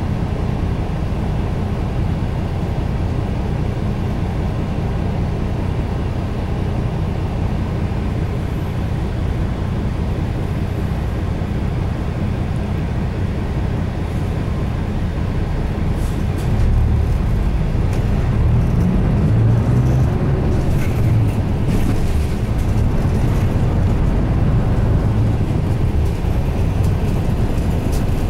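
Inside the cabin of a Mitsubishi Fuso Aero Star bus, its 6M70 turbo-diesel runs at a steady low hum for about the first half. Then it gets louder and the pitch shifts as the bus pulls away and drives on.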